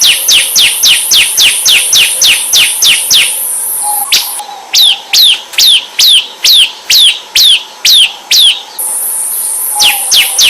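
Ciblek semi (prinia) singing a rapid run of sharp falling chirps, about four a second. About four seconds in it switches to slower, louder falling notes, about two and a half a second, then the fast chirping returns near the end. A steady high hiss sits under the fast chirps.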